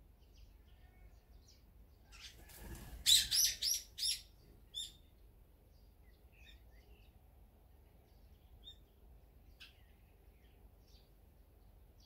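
Wild songbird at a seed feeder giving four loud, shrill calls in quick succession about three seconds in, with one more call a moment later and a short rustle just before them. Faint, scattered chirps of small birds follow.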